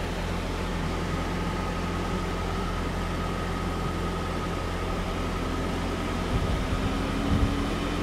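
Steady road and engine noise of a car driving, a low rumble with a faint steady whine, and a few soft thumps near the end.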